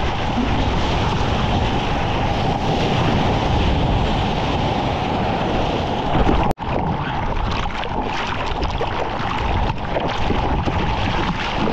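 Ocean surf and churning water, loud and close, with wind buffeting the microphone. The sound cuts out for an instant about six and a half seconds in.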